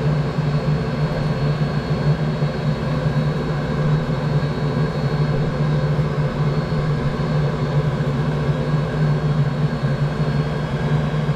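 Steady mechanical hum with a strong low drone, running unchanged throughout, from the snowcat's hydronic heater running.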